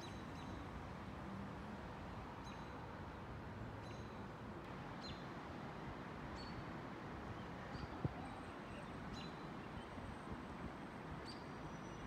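Small birds chirping, short high calls repeating about every second or so, over a faint steady outdoor background hum. A single click about eight seconds in.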